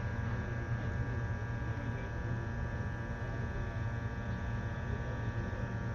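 Hot air rework station blowing a steady stream of hot air, a constant hum, as it heats an onboard memory chip to reflow its solder.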